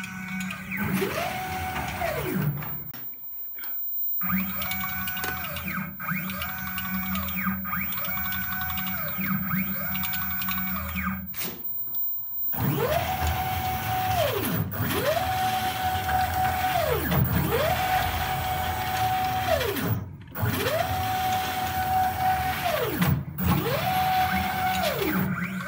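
Stepper motors driving the belt-driven axes of a homemade CNC router through test moves. Each move is a whine that rises in pitch, holds, then falls as the motor speeds up and slows down, repeated about a dozen times over a steady low hum, the later moves longer.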